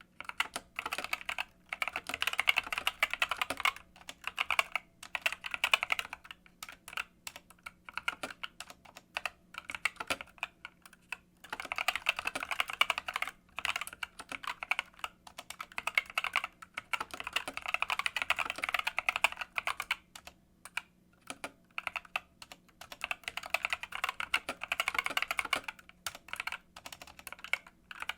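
Typing on a GK64S/SK64S keyboard fitted with Gateron optical Black linear switches: runs of fast key presses, with short pauses between runs.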